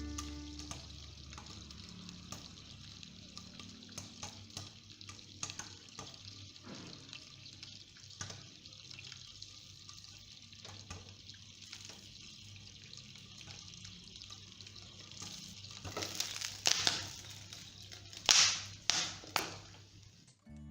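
Popcorn kernels popping in hot oil in a covered pan: scattered pops over a steady sizzle, with a few much louder sharp pops close together near the end.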